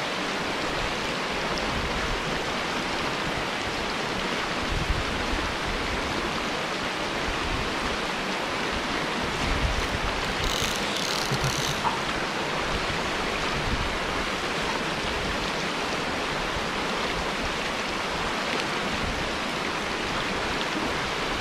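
Snowmelt mountain stream flowing steadily over rocks, a constant rush of water. A few short high-pitched notes sound about halfway through.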